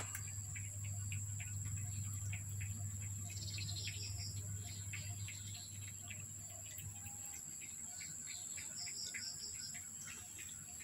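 A cat eating from a plastic bowl, with small irregular chewing clicks. Short clusters of high chirps come three times, and a low hum stops about seven seconds in.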